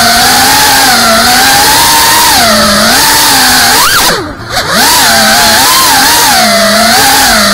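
FPV drone's electric motors whining, the pitch rising and falling with the throttle. About four seconds in the pitch sweeps up sharply, then the throttle is cut and the whine nearly drops out for about half a second before spooling back up.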